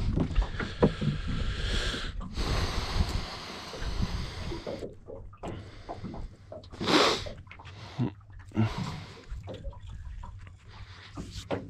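Handling sounds in a small aluminium boat: a few sharp clicks and knocks as the Esky icebox lid is worked, then quieter rustling with a short, sharp breath about seven seconds in.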